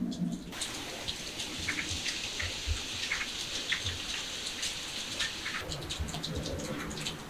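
Steady patter of light rain: a soft hiss with many scattered drip ticks.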